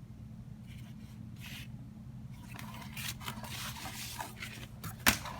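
Paper and cardboard packaging being handled, rustling and scraping, with a sharp click near the end.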